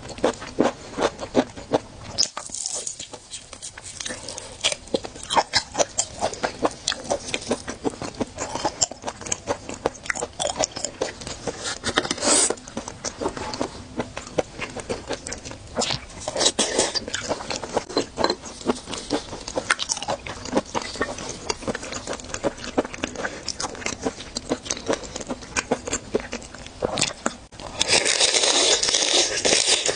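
Close-miked, wet chewing and lip-smacking of someone eating raw seafood, many sharp clicks coming in quick runs. Near the end comes a louder, denser stretch of noise as a raw shrimp is bitten.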